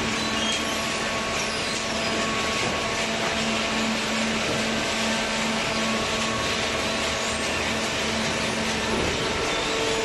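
Horizontal hydraulic cardboard baler and its feed conveyor running: a steady machine drone with a few held whine tones, the lowest of which gives way to a higher one near the end.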